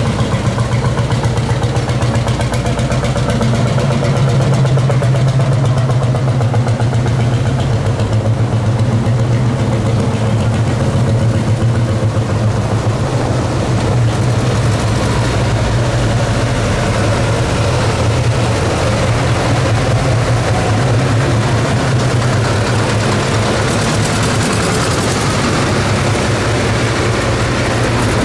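Vintage tractor engine running at a steady speed, a low, even drone.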